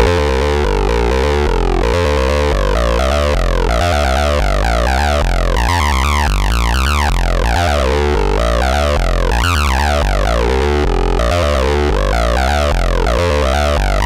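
Roland TB-303 Bass Line synthesizer playing a sequenced acid bassline. Short notes repeat in a fast pattern while the resonant filter opens and closes, so the tone sweeps up and down again and again.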